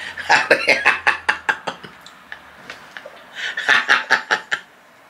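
A man laughing in two bursts of quick, repeated ha-ha pulses, the second starting about three and a half seconds in.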